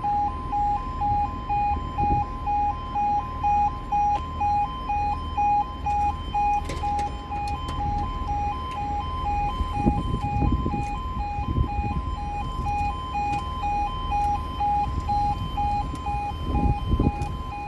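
Railway level crossing alarm sounding while the barriers come down: a two-tone alarm switching back and forth between a lower and a higher pitch about twice a second.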